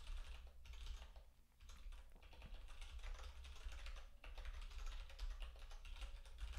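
Typing on a computer keyboard: quick runs of keystrokes with brief pauses, over a low steady hum.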